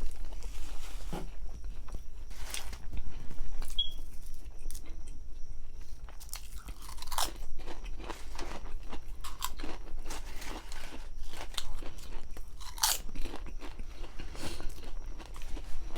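A person biting into and chewing a baked grinder sandwich, with irregular crunches.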